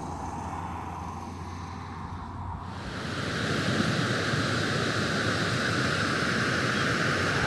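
Floodwater pouring over the Burdekin Dam spillway: a steady rush of water that grows louder about three seconds in.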